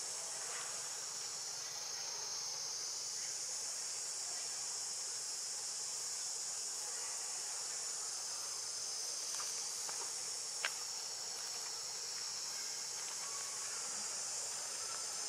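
Steady high-pitched insect chorus, with one sharp click about ten and a half seconds in.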